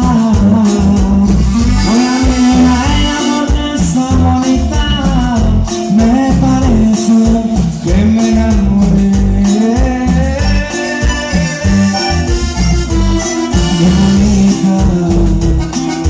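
Loud Mexican regional dance music from a band playing for the dancers: a steady pulsing bass beat under accordion and sung melody.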